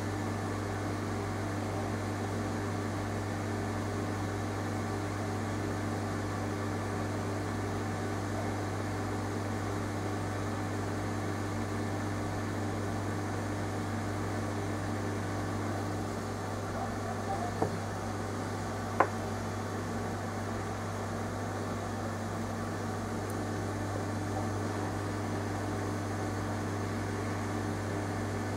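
Steady low mechanical hum, like a fan or small motor running, with two short sharp clicks about two-thirds of the way through.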